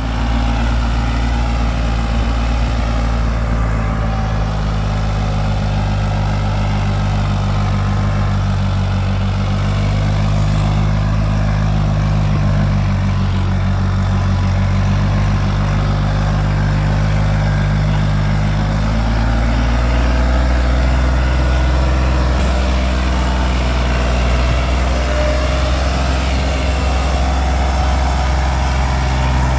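New Holland 3600-2 tractor's diesel engine running hard as it pulls a fully loaded trolley of earth; its note changes about two-thirds of the way through.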